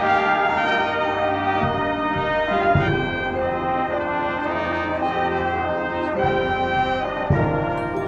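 Marching band playing a field show: the brass section holds full sustained chords, with sharp percussion hits a few times, the loudest about seven seconds in.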